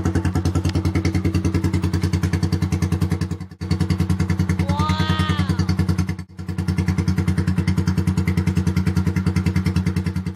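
Rusi DL 150's single-cylinder four-stroke engine idling through a Daeng open exhaust pipe, a loud steady lumpy beat of about eight pulses a second. The sound drops out briefly twice, and a short high-pitched call is heard about five seconds in.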